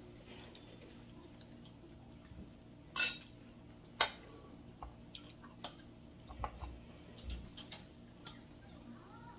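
Spoons clinking and scraping against bowls and plates as people eat: scattered light clicks, with two sharper ones about three and four seconds in.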